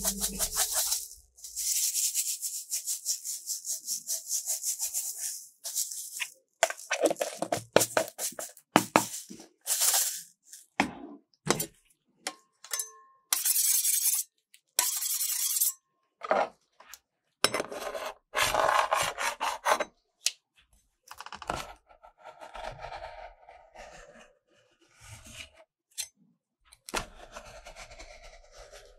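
Sprinkles rattling in a plastic jar as it is shaken over the plate in quick rhythmic bursts for the first six seconds. Then metal spatulas scraping across frozen ice cream on a steel cold plate, stroke after stroke, as it is scraped up into rolls.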